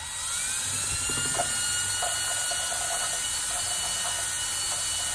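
Small electric drill running, spinning an engine valve in its seat in a Toyota 2.5-litre cylinder head to lap it with valve grinding compound. The whine climbs in pitch over the first half second as the drill spins up, then holds steady.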